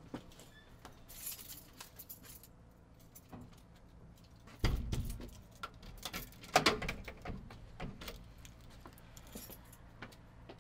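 Keys jangling and clicking, with a dull thump about four and a half seconds in and the loudest jingle of clicks a couple of seconds later.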